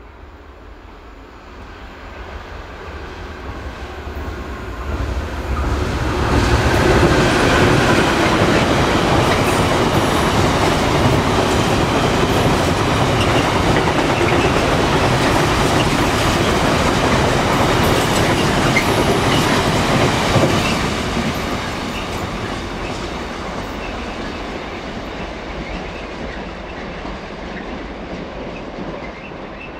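A General Motors-engined 201 class diesel locomotive hauling a long container freight train through a station at speed. The locomotive's low rumble builds as it approaches, then a long loud clatter of wagon wheels over the rail joints runs for about fifteen seconds as the container wagons pass, and the sound fades slowly as the train draws away.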